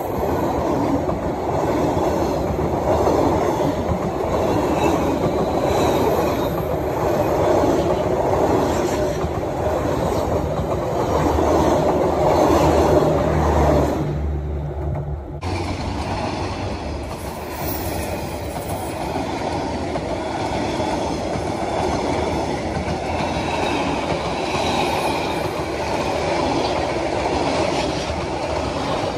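Passenger train coaches rolling past at close range, a steady rumble of steel wheels on the rails.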